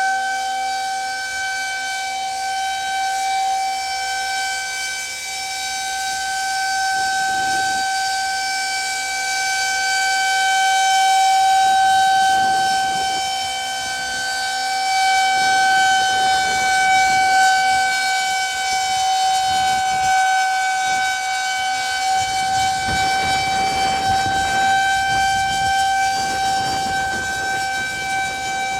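Federal Signal 2001-130 electromechanical outdoor warning siren sounding its steady Alert tone: one unbroken pitch, its loudness slowly swelling and fading. A low rumble comes and goes beneath it, heavier in the second half.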